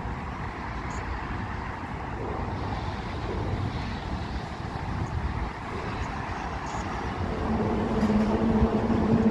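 Steady low rumble of traffic on the bridge overhead. A louder steady hum joins in about seven and a half seconds in and holds to the end.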